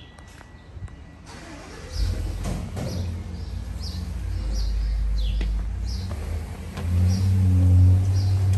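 A motor vehicle engine running close by: a low, steady rumble that gets louder about two seconds in and again near seven seconds.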